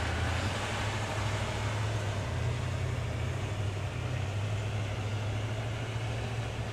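Vehicles driving slowly along a snow-covered road: a steady low engine hum under an even hiss.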